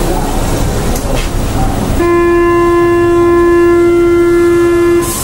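Metro train carriage running with a steady rumble. About two seconds in, a loud, steady warning tone sounds for about three seconds and cuts off suddenly.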